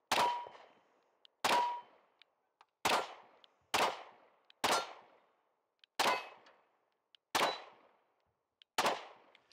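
Compact Smith & Wesson pistol fired eight times, a shot every second or so at an uneven pace. Hits on hanging steel plates ring briefly after several of the shots.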